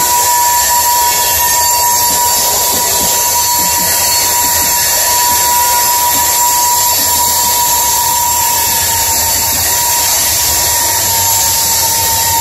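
Loaded coal gondolas rolling past, their steel wheels grinding against the rail with a steady high squeal over a constant hiss and low rumble.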